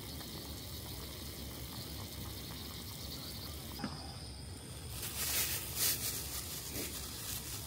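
Soup simmering in a small pot on a gas camping stove: a steady hiss with fine bubbling. Over the second half come a few brief louder rustles.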